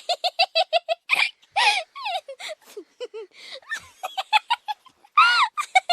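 Young children playing: high-pitched giggling in quick repeated bursts, mixed with squeals and babble, and a loud shriek about five seconds in.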